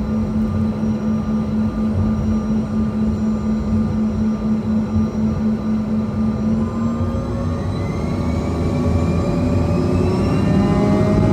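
Cabin sound of a Bombardier CRJ-200's two rear-mounted GE CF34 turbofans: a steady hum, then about seven seconds in a rising whine as the engines spool up. It grows louder toward the end, the thrust coming up for takeoff.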